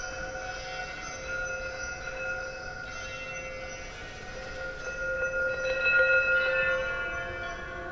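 The art installation's soundscape of layered, sustained ringing tones: several steady pitches sound together like a chord, some fading in and out, and they grow louder about six seconds in.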